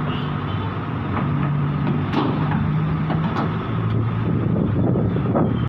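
Heavy diesel engine running steadily, its pitch shifting slightly, with sharp metallic knocks scattered through it, from an excavator being unloaded from a truck.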